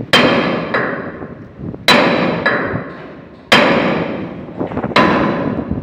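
Hammer blows on steel: four heavy metallic strikes about a second and a half apart, each one ringing and fading before the next, with a couple of lighter taps between them. The hammer is knocking apart a corroded joint on a ship's winch brake linkage.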